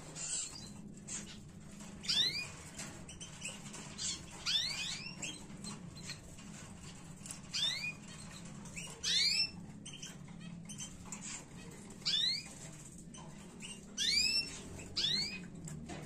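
Canaries calling: short rising chirps in quick runs of two to four, about every one to three seconds.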